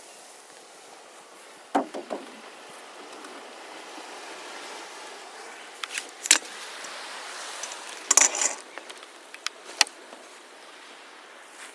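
Surf and wind at the shore as a steady wash, broken by a few sharp clinks and knocks: a pair about two seconds in, a single loud one in the middle, a quick cluster later on and one more near the end.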